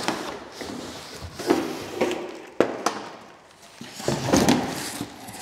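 Cardboard packaging being handled: rustling and scraping, with a few sharp knocks.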